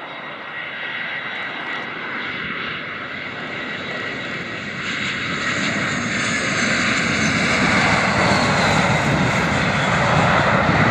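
Airbus A320-214 jet on landing, its CFM56 turbofan engines giving a steady whine and rush that grows louder as the airliner flies low past and touches down on the runway.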